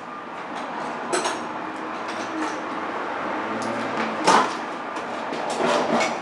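Hand tools clanking and scraping on metal while a bolt holding the belt tensioner is worked loose, with three louder sharp knocks and smaller ticks between them.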